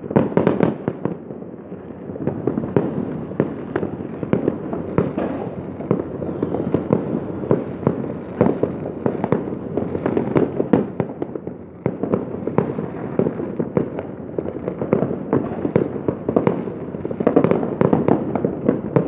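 Fireworks going off in a continuous barrage: many overlapping bangs and crackles in quick succession.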